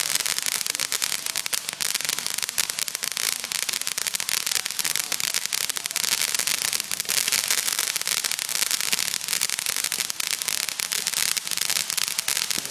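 Ground fountain firework spraying sparks, giving a steady hiss packed with dense crackling.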